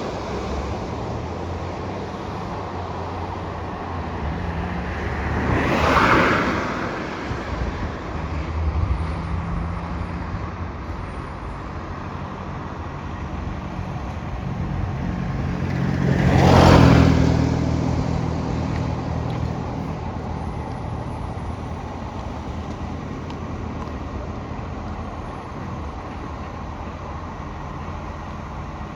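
Garbage truck engine running steadily with a fresh exhaust leak, its low note rising a little at times, with two louder swells about 6 and 16 seconds in.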